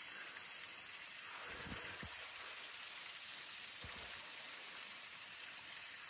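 Steady hiss of water running beneath a frozen waterfall and creek, with a few faint low knocks about two and four seconds in.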